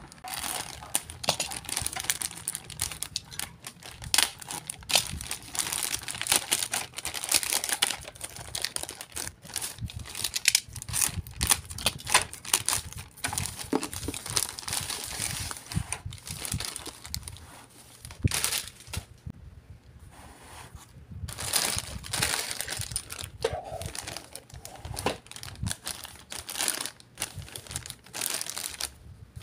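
Thin clear plastic packaging bags crinkling and rustling in irregular bursts as they are handled and pulled off plastic toy parts, with a brief lull about two-thirds of the way through.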